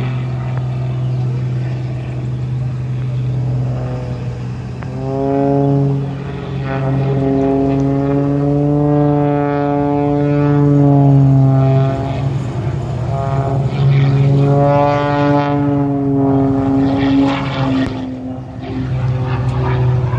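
Single-engine propeller stunt plane's engine and propeller droning loudly overhead during aerobatics, the pitch rising and falling several times as it climbs and turns through the maneuvers.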